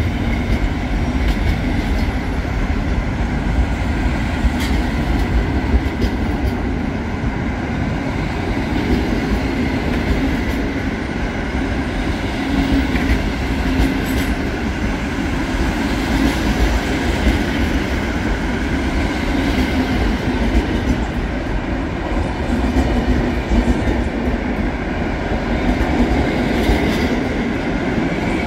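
PKP Intercity passenger coaches rolling past along a station platform: a steady rumble of wheels on rail with scattered clicks as the wheels pass over rail joints.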